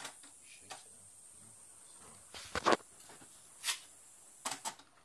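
A handful of short, sharp clicks and knocks at irregular intervals, the loudest a double knock about two and a half seconds in.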